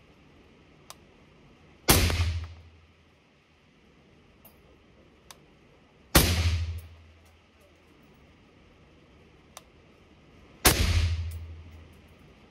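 Three suppressed single shots from a 5.56 SIG MCX Virtus 11.5-inch rifle with a SureFire SOCOM556-RC2 suppressor, spaced about four seconds apart. Each shot has a short echoing tail, and a few faint clicks fall between the shots.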